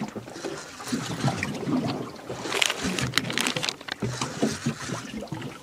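Water lapping against a small boat's hull on a calm sea, irregular and unsteady, with a louder rush of noise about midway.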